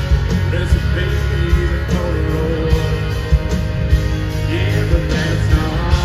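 Live country band playing a song, with electric guitars, bass and drums keeping a steady beat under a male lead vocal, heard from the crowd of an arena.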